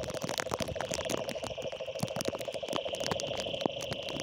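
Rain outdoors, with scattered drops tapping close by and a steady, rapidly pulsing chorus underneath.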